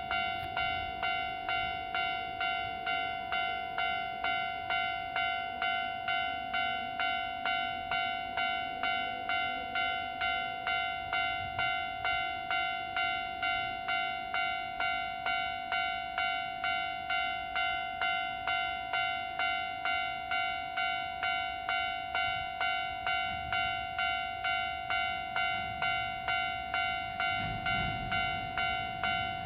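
Japanese level-crossing warning bell ringing in a steady, fast-repeating ding. A train's low rumble begins to grow in the last couple of seconds as the express approaches the crossing.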